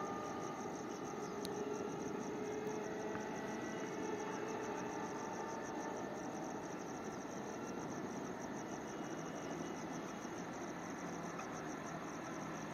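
Crickets chirring in a fast, even pulsing trill, over a faint low rumble from a distant approaching electric local train.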